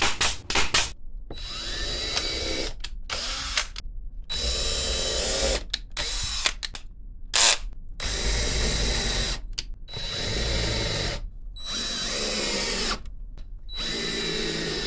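A few sharp shots from a DeWalt brad nailer in the first second, then a DeWalt cordless drill driving screws into wooden rails in about eight short runs, each spinning up to a steady whine and stopping.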